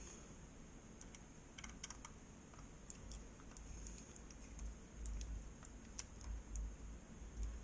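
Irregular faint plastic clicks and soft knocks from a trackball mouse being handled, its buttons pressed to test them after cleaning.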